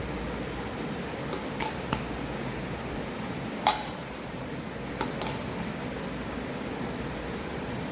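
A few light clinks of a kitchen utensil, the sharpest about three and a half seconds in, over a steady fan hum.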